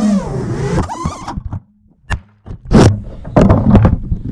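A pitched sound from the flight, bending in pitch, cuts off about a second and a half in. After a moment of quiet comes a sharp knock, then a loud thump, followed by rustling and knocking as a hand picks up and handles the action camera.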